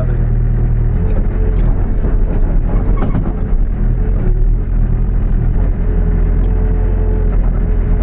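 New Holland B95B backhoe loader's diesel engine running steadily under load, with a steady whine over it and a few knocks as the machine works.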